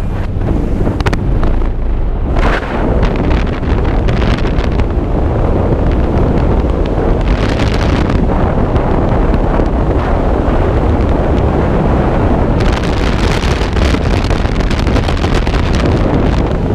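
Freefall airflow buffeting a helmet-mounted camera's microphone: loud, steady wind noise heavy in the low end, turning hissier about three quarters of the way in.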